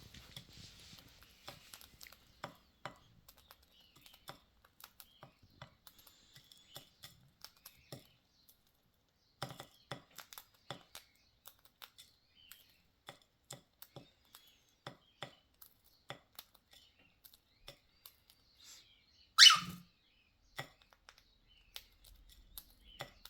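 Pet cockatiel eating: many small, irregular clicks and crunches of its beak on food. One short, loud, harsh sound comes near the end.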